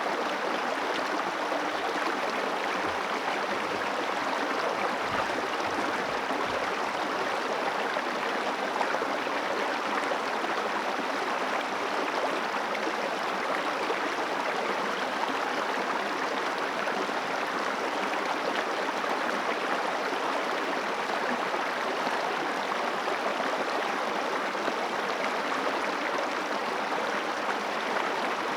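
River water flowing and rushing over stones in a steady, even stream.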